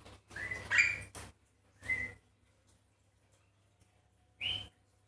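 Javan myna giving short, sharp whistled calls: a quick run of calls in the first second or so, one more about two seconds in, and another after a pause, near the end.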